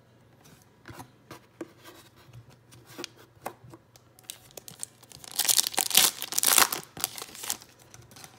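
Light taps and clicks of cards being handled, then about two seconds of loud tearing and crinkling, most likely the foil wrapper of a trading-card pack being ripped open.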